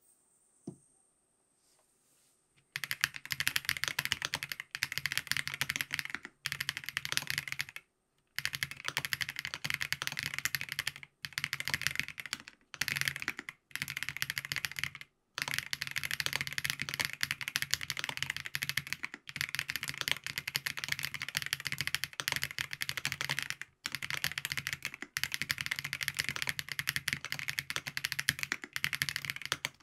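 Steady fast typing on a FancyTech Origin 65A mechanical keyboard with Krytox-lubed Geon Black switches, a gasket-mounted POM plate, foam dampening and ABS keycaps. It is a dense stream of keystrokes that starts about three seconds in and breaks off briefly every few seconds. A single soft knock comes just before it.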